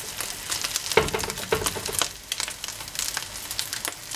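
Rice fritters frying in hot oil in a terracotta cazuela: a steady sizzle full of small crackling pops. A plastic slotted spatula scrapes and knocks against the dish as a fritter is turned, the loudest knock about a second in.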